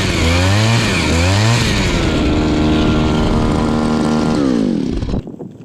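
Gas-powered ice auger drilling a hole through lake ice: the engine revs up and down in surges, holds steady at high speed while cutting, then winds down and stops about five seconds in.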